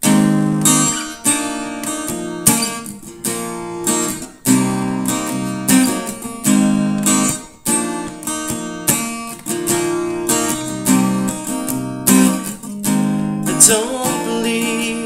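Acoustic guitar strummed in a steady rhythm of chords, the opening of a song. A man's voice comes in singing near the end.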